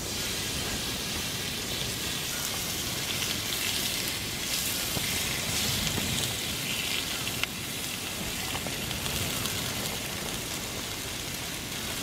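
Thinly sliced beef brisket sizzling steadily on a hot grill pan, a dense even hiss, with one small click about seven seconds in.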